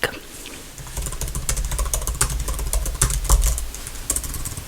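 Quick, light tapping on a computer keyboard, with a low rumble underneath from about a second in until near the end.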